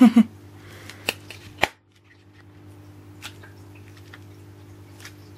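Two light clicks about a second in as a homemade foam Oreo squishy mirror is handled and closed, then a low steady hum with an occasional faint tick.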